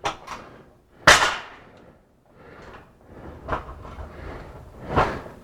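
Parts of a portable platform scaffold knocking against each other as they are handled and fitted together: a sharp knock, then a louder clank about a second in, and a few lighter knocks after.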